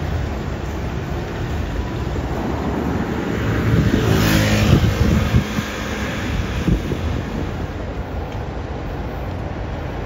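Steady street-traffic rumble, with one motor vehicle passing close by about four to five seconds in, its engine note falling in pitch as it goes by.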